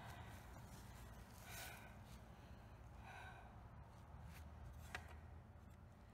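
Near silence, with two soft exhales from a person and one faint tap about five seconds in.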